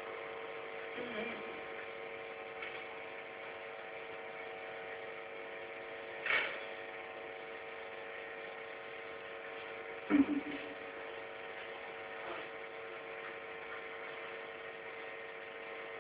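Steady electrical hum of several fixed tones, with a short sound about six seconds in and a sharp knock about ten seconds in.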